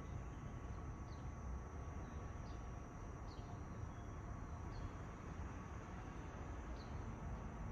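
Quiet outdoor ambience: a steady low rumble with faint, short high chirps about once a second or so.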